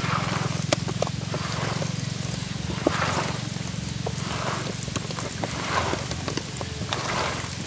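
Wet squelching and sticky clicks of a bare hand mixing pieces of snakehead murrel fish into a thick ground-chili masala paste, in repeated soft swells over a steady low hum.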